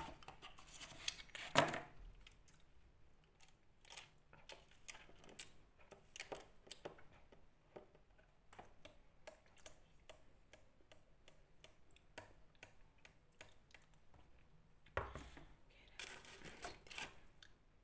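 Close-up eating sounds: many small clicks from chewing and the mouth, with a sip of cola through a drinking straw partway through. A paper burger wrapper rustles louder near the end.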